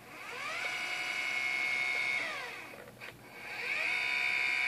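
Celestron NexStar SE mount's slew motors whining. The pitch rises as they speed up, holds, and falls away as they stop about two and a half seconds in. After a click it rises again and holds. The high, steady whine shows the motors getting full power at full slew speed.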